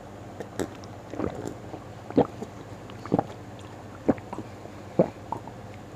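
A person gulping water from a glass, swallowing about once a second, five times, close to the microphone.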